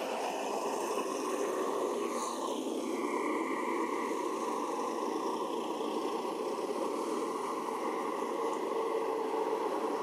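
Steady background noise, strongest in the low-middle range, with a faint high falling whistle about two seconds in.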